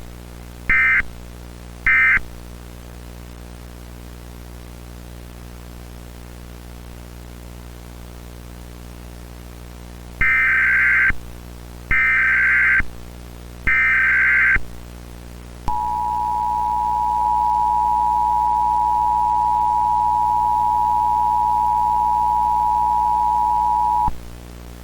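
Emergency Alert System signals: two short buzzy data bursts in the first two seconds, closing an end-of-message code, then after a long pause three longer SAME header data bursts, followed by the two-tone EAS attention signal held steady for about eight seconds. A constant VHS-style hum and hiss runs underneath.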